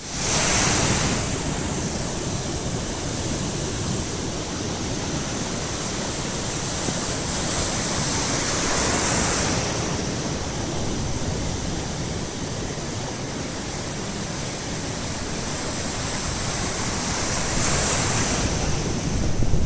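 Baltic Sea surf washing onto the shore in a continuous rush, swelling as waves break roughly every eight to nine seconds, with some wind noise on the microphone.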